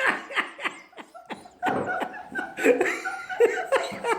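People laughing in short, repeated bursts of chuckling.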